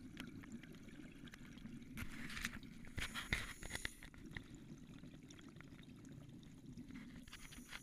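Scuba regulator exhaust: exhaled bubbles gurgling in two bursts about two and three seconds in, the second the louder, and another starting near the end, heard underwater through a GoPro housing. A faint steady low hum lies underneath.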